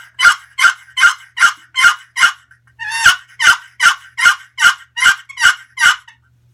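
Custom Purple Heart and Mahogany turkey box call, its lid worked across the box to make higher-pitched turkey yelps: two runs of about seven or eight even yelps, with a short pause between them.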